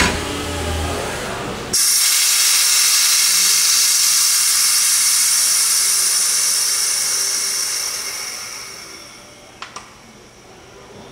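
Compressed air hissing out of a RakJak pneumatic jack's stacked double air bags as it is let down. The hiss starts suddenly and loudly a couple of seconds in, then fades away as the bags deflate and the car settles. Two light clicks come near the end.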